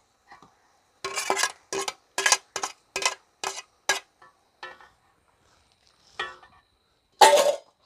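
Metal slotted ladle scraping and clanking against a metal pan as boiled pork is stirred into the fried onion-tomato masala for pork varattiyathu. A quick run of strokes about every half second, then a few spaced ones, the last the loudest.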